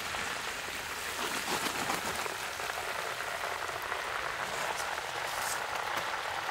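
Chicken legs deep-frying in a wok of hot oil: a steady sizzling and crackling.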